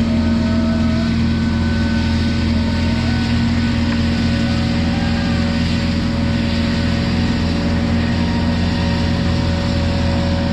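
Engine of a piece of heavy equipment running steadily at a constant speed, with a steady whine over it and no change in pitch.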